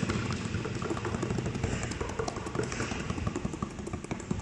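A basketball finger-dribbled low and fast on a concrete court floor, a quick run of short bounces.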